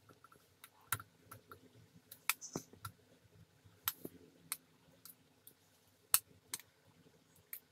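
Chopped mango pieces tipped from a plastic bowl into a stainless-steel mixer-grinder jar: scattered, irregular clicks and soft knocks as the pieces drop against the steel and the bowl touches the jar.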